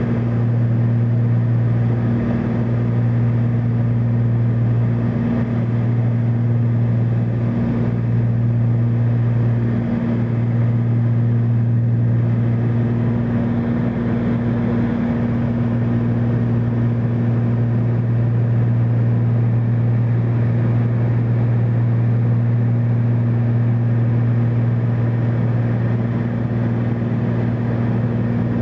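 Engines and propellers of a twin-engine light aircraft in flight, heard from inside the cabin: a loud, steady drone with a strong low hum.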